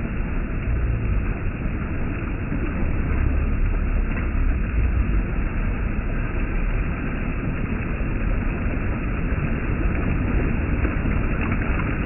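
Water rushing over a small weir into a foaming stream: a steady, deep rushing with no breaks.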